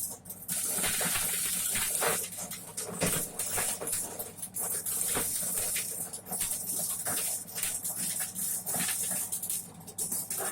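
Homemade corn sheller machine running over a faint low hum, with a dense, irregular patter of clicks as corn is fed through it and a steady high hiss.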